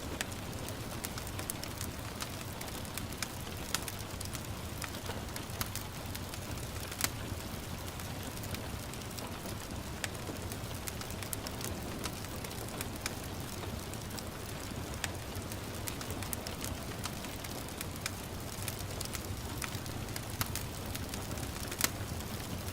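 Wood fire crackling, with irregular sharp pops (the loudest about seven seconds in and near the end), over a steady hiss of gentle rain.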